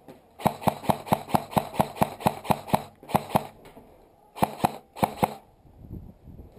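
Airsoft gun firing a rapid string of about eleven shots, about four or five a second, then short groups of two, two and three shots.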